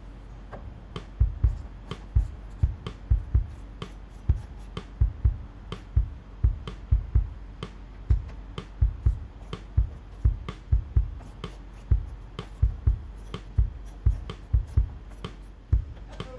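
Irregular series of knocks and thumps, roughly two a second, over a low steady hum.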